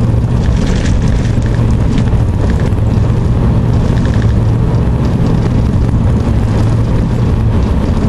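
Truck driving on a wet, rutted mud road, heard from inside the cab: steady engine hum with tyre and road noise.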